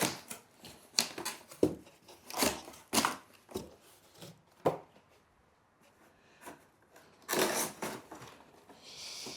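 Corrugated cardboard shelf panels being pushed and slid into cutouts in another cardboard panel. Irregular knocks and clicks come with scraping and rubbing of cardboard on cardboard, including a longer scrape about three-quarters of the way through.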